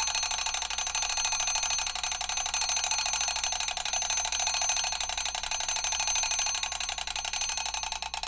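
Mechanical alarm clock bell ringing: the hammer strikes the bell very rapidly in a continuous metallic rattling ring.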